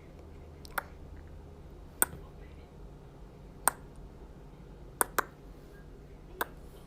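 Six short, sharp clicks at uneven intervals, two of them close together about five seconds in, over a faint low hum.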